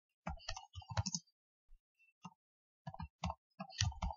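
Computer keyboard typing: irregular keystrokes in short runs, with a pause of about a second in the middle.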